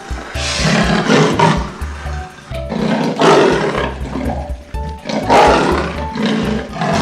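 Lion roaring and growling in several short, loud bursts, over background music.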